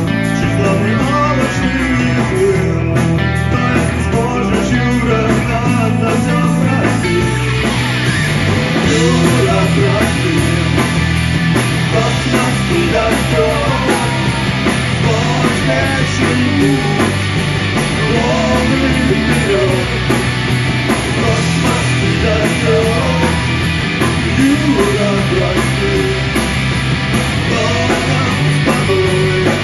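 Live rock band playing: electric guitar, bass guitar and drums, with male singing. About seven seconds in, the sound grows fuller and brighter.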